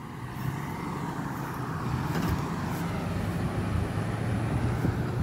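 A road vehicle running by, its low engine hum and tyre noise building over the first couple of seconds and then holding steady.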